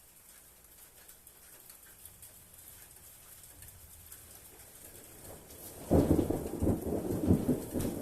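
Thunder: a low rumble that slowly builds for several seconds, then a loud rolling peal about six seconds in that keeps rumbling to the end.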